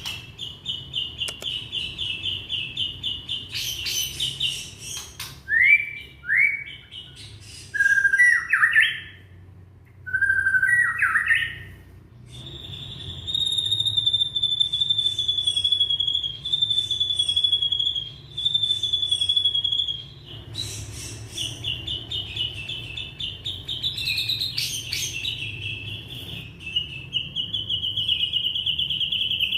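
Young white-rumped shama (murai batu) singing: fast trilled chatter, then a run of loud rising sweeping notes, then long steady whistled phrases before the trilling returns.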